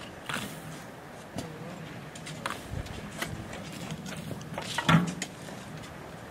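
Hand tools scraping and knocking in dirt, in irregular strokes, with one louder knock about five seconds in.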